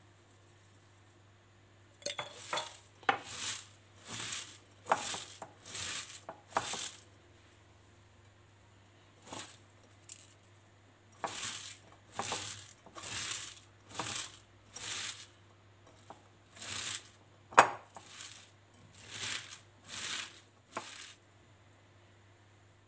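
Shredded raw white cabbage being rubbed and squeezed with salt by hand in a bowl: a run of crisp crunching squeezes, roughly one every second, with a short pause partway through. One sharp click against the bowl stands out as the loudest sound.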